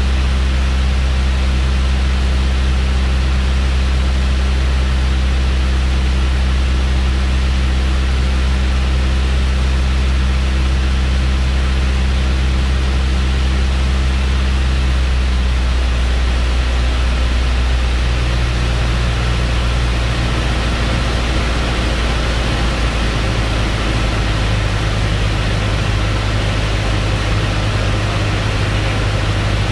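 Light piston airplane's engine and propeller droning steadily in the cabin over a hiss of rushing air. The engine note changes pitch about 15 to 20 seconds in.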